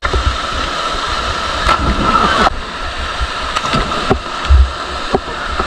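Small waterfall pouring into a pool, heard from a camera at the water's surface, with water sloshing and rumbling against the microphone. Near the end, a person hits the water with a splash.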